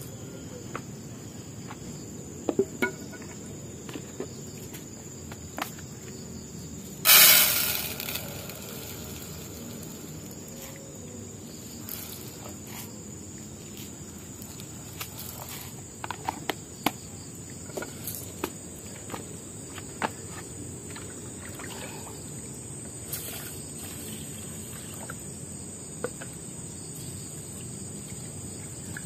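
Steady high-pitched drone of insects, with scattered small knocks and clicks from a bucket, a pot and a plastic container being handled. About seven seconds in there is one loud rush of noise lasting about a second.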